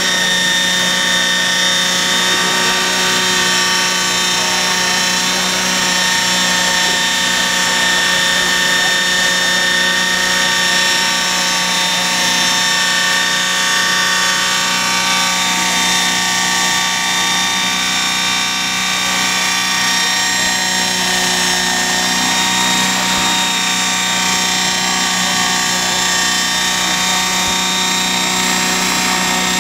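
Radio-controlled scale model helicopter, a Heli-Baby replica, hovering low: its motor and rotor give a steady whine at a nearly fixed pitch.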